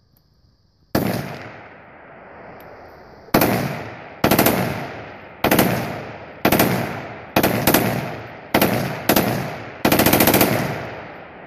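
Full-auto AR-style rifle firing: a single shot about a second in, then about nine short bursts of rapid fire, the last the longest, each trailing off in an echo.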